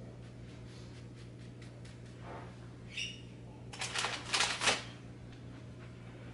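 Light handling sounds of scone dough being brushed free of loose flour and set down. The loudest part is a short flurry of rustles and taps about four seconds in, over a steady low hum.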